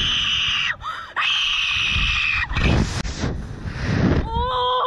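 Riders on a slingshot ride screaming, with two long high-pitched shrieks, as they are flung into the air. A stretch of wind rushing over the ride's microphone follows, and a rider's yelling voice comes in near the end.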